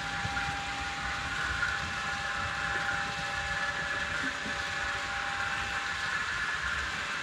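HO-scale model trains running on the layout: a steady hum of wheels rolling on track and small motors, with a thin steady whining tone over it.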